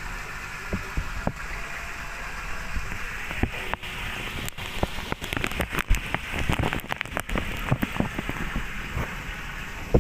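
Koi pond water splashing and crackling: a steady wash of water noise with many small sharp pops and clicks, busiest about halfway through.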